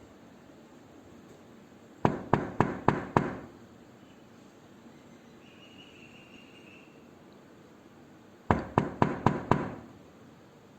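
Knocking on a door: two rounds of five quick, loud knocks about six seconds apart, over a faint steady background hiss.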